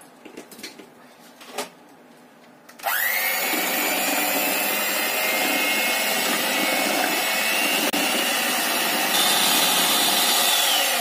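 Electric hand mixer switched on about three seconds in. Its motor whine rises quickly to a steady pitch as the twin beaters whip eggs, sugar and emulsifier for a sponge batter, aiming for the pale, trail-holding ribbon stage. Near the end the pitch steps higher, then starts to fall away.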